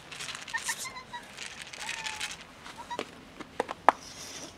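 A plastic food container being handled close up: rustling for the first two seconds or so, then a few sharp clicks and taps as it is set down on the pavement, the loudest a little before the end. A few faint short cat mews sound in the first couple of seconds.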